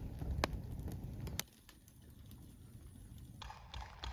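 Wood campfire of damp logs burning, with sharp scattered crackles and pops. A low rumble runs under the first second and a half and then drops away suddenly.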